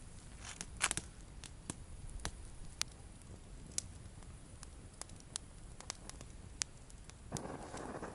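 Campfire crackling, with irregular sharp pops and snaps. A steady hiss starts near the end.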